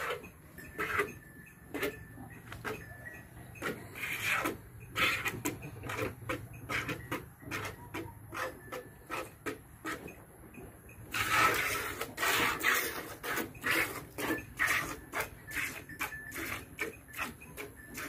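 A cow being milked by hand: milk squirting from the teats into a plastic bucket in short, regular spurts, about two a second at first and quickening to about three a second, with one longer, louder rush about eleven seconds in.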